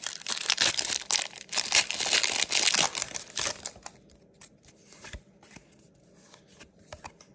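Foil wrapper of a Pokémon TCG Surging Sparks booster pack being torn open and crinkled, dense and crackly for about the first four seconds, then only faint handling with a few light clicks.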